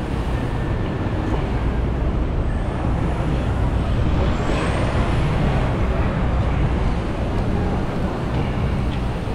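Steady city street traffic noise with a heavy low rumble, heard from a bicycle moving among cars and taxis; two faint high rising whistles come through around the middle.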